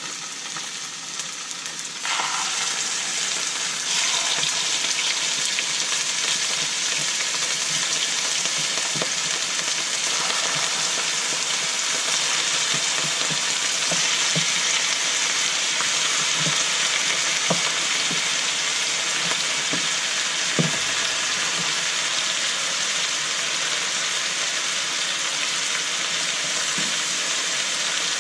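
Raw chicken pieces sizzling in hot oil as they are laid one by one into a nonstick wok of frying onions. The sizzle grows louder about two seconds in and again about four seconds in, with occasional light knocks of meat and hands against the pan.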